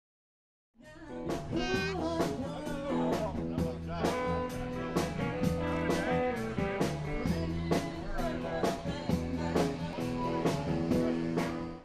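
Blues music with guitar and a steady beat, starting about a second in.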